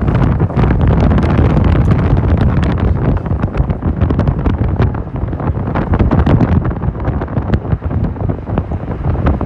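Wind buffeting the microphone: a loud, uneven low rumble with frequent crackles.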